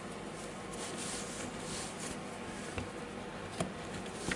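Light handling of small drill parts being fitted back into the plastic housing: a few faint clicks and some rubbing, mostly in the second half, over a steady hiss.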